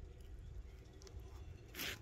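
A brief scrape near the end over a steady low rumble of wind on the microphone, with a few faint scuffs before it.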